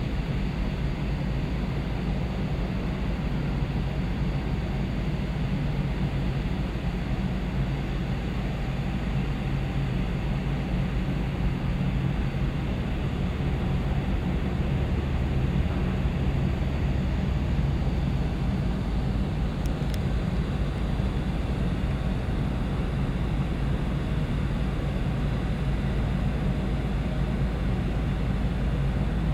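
Steady low drone of a large car ferry's engines and machinery heard from the open deck, with several constant low hums over a hiss of wind and moving water.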